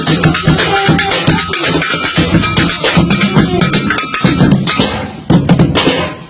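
Children drumming a fast rhythm with sticks on improvised percussion: an old bucket, plastic jerry cans and a plastic crate. The beat drops out briefly about five seconds in, then picks up again.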